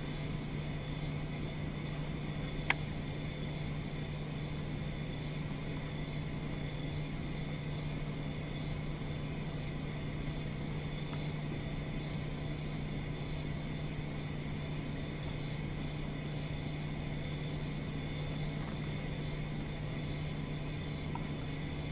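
Steady low background hum with faint steady whine tones, like room equipment or a ventilation fan, and a single sharp click about three seconds in.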